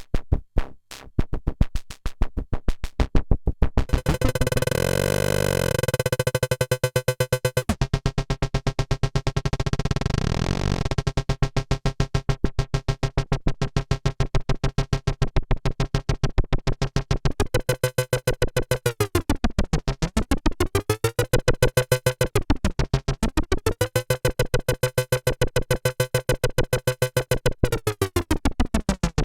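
EDP Wasp synthesizer playing on its own: a fast, rapidly repeating pulsing note, with a held buzzy tone about four seconds in that gives way to a sweeping hiss. From about eleven seconds the pulsing runs steadily, and in the second half its pitch swoops down and back up several times.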